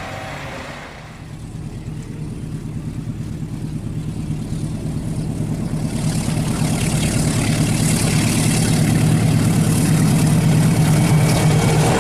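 Diesel engine of an approaching GE CC206 diesel-electric locomotive, a steady low rumble growing louder, with wheel and rail noise building in the second half. In the first second a locomotive horn fades out.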